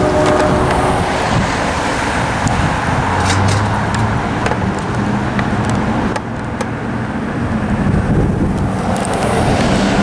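Road traffic at a street crossing: car and pickup truck engines and tyre noise, a steady rumble with no single event standing out.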